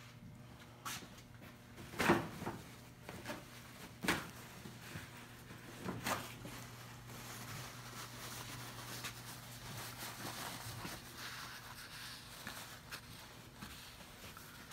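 A few sharp knocks in the first six seconds, the loudest about two seconds in, then soft steady rubbing as a paper towel wipes squeezed-out wood glue off the seam of a clamped wood block. A low steady hum runs underneath.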